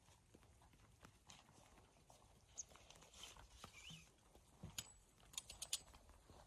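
Faint footsteps on snow-covered grass and the rustle of a rain poncho as a person walks up, with a quick run of sharp light clicks a little before the end.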